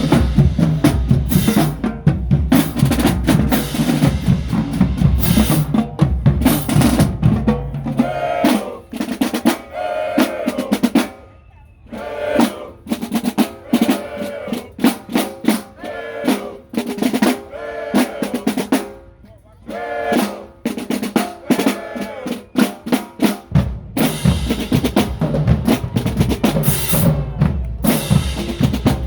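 Marching band drumline playing a cadence of snare drums and bass drums, with rolls and rimshots. About eight seconds in the bass drums drop out, leaving the snares and higher-pitched drums. The bass drums come back in near the end.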